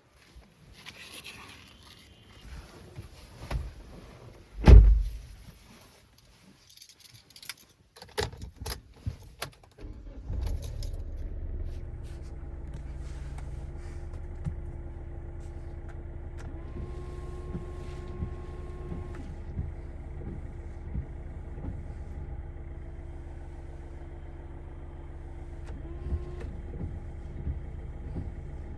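Keys and handling knocks, then a car door shutting with a loud thud about five seconds in. About ten seconds in a car engine starts and idles steadily for the rest of the time.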